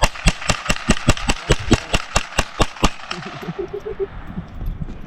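Gunfire: a rapid string of about a dozen shots, four or five a second, that stops about three seconds in.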